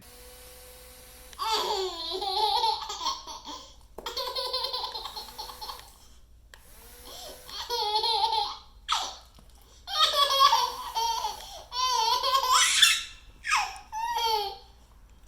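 A baby laughing hard in a string of giggles and belly laughs, with short pauses between the bursts.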